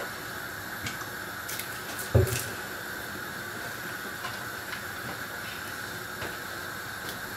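Steady low hiss from a gas stove burner heating oil in a frying pan, with a single thump about two seconds in as the oil bottle is set down on the counter.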